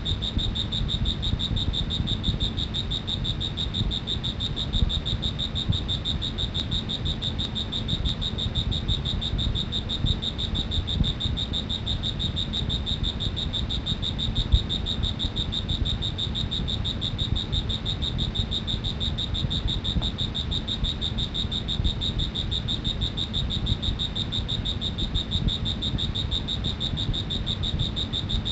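An insect trilling: one continuous high, fast-pulsing trill that holds steady throughout, over a low background rumble.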